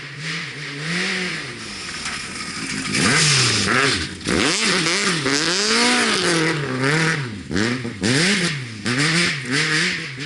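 Rally car engine revving hard and dropping again and again as it shifts gear and comes on and off the throttle. It is loudest and quickest from about three seconds in.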